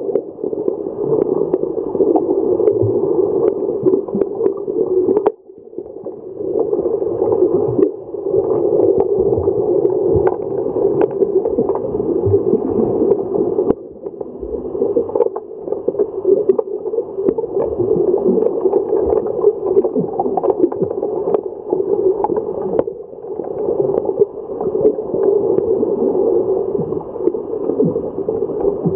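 Underwater hockey play heard through an underwater camera: a dense, muffled rush of water and bubbles, dotted with frequent sharp clicks and knocks. It drops away briefly about five, fourteen and twenty-three seconds in.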